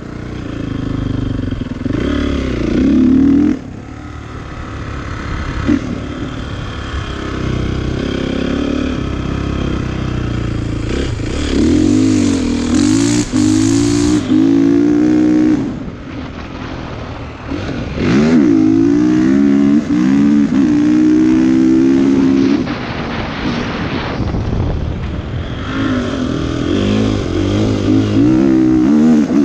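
Dirt bike engine revving hard and climbing in pitch, then backing off, over and over: repeated bursts of acceleration with quieter off-throttle stretches between.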